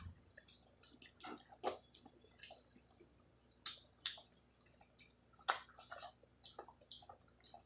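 Close eating sounds: irregular wet smacks and squishy chewing of a rice-and-curry meal, a few short clicks each second.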